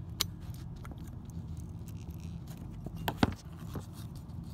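Screwdriver tightening the screw on a furnace igniter's metal bracket: a few light clicks and scrapes, the sharpest about three seconds in, over a steady low rumble.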